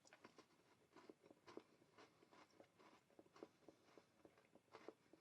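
Faint, irregular crunching of a milk chocolate KitKat wafer bar being chewed, many small crackles in quick succession.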